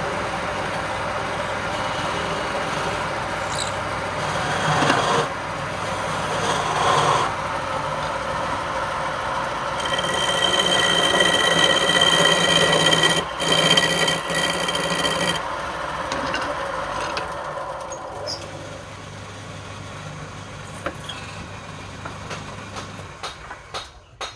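Woodturning lathe running with a tool scraping and cutting the spinning wood. It is loudest around the middle, with a steady whine, and dies down near the end.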